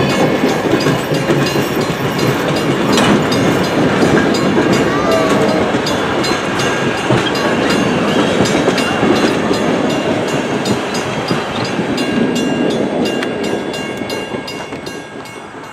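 Steam-hauled passenger coaches rolling past on the rails, their wheels clicking quickly over the rail joints with thin high tones of wheel squeal. The sound fades in the last few seconds as the last coach draws away.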